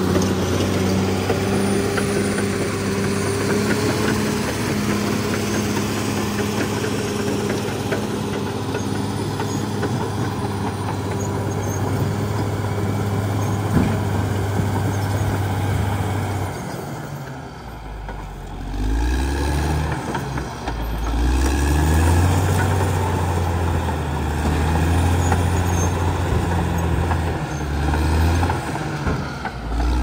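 Caterpillar D6R XL bulldozer's diesel engine running steadily as the machine works the dirt road. About halfway through the sound changes to a lower, uneven engine note that rises and falls in pitch.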